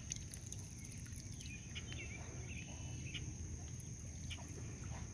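Faint, high peeping of mallard ducklings: scattered short chirps over a steady low background rumble.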